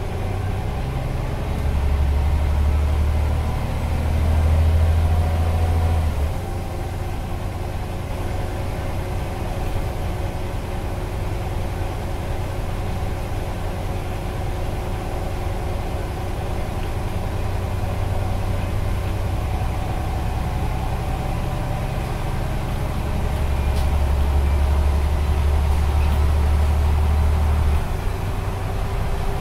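Scania CN94UB OmniCity bus engine and drivetrain droning while the bus is driven along, heard from inside the passenger saloon. The deep engine rumble grows louder about two seconds in and drops back about six seconds in, then swells again for several seconds near the end before easing off.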